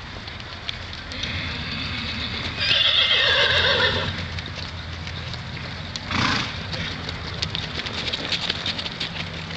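A horse whinnies: one long, loud call that falls in pitch, loudest about three seconds in. A short noisy blast comes about six seconds in, and scattered hoofbeats follow near the end.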